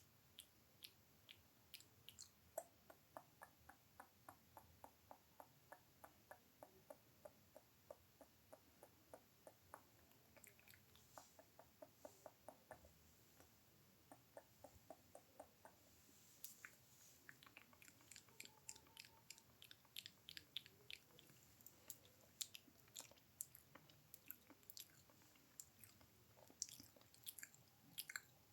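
Wet mouth clicks and smacks, with no speech. Through the middle stretch they come as a quick regular run of about four soft clicks a second; after that come sparser, sharper clicks.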